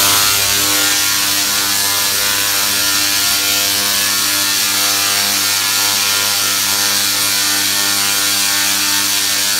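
Large Tesla coil firing: its sparks arcing through the air make a loud, steady electric buzz that starts abruptly.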